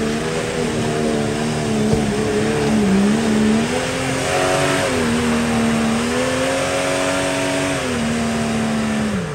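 Off-road 4x4's engine revving hard and held at high revs, rising and dipping in pitch, over the hiss of tyres spinning in wet mud as it struggles for grip on a rain-soaked climb. The revs fall away sharply at the very end.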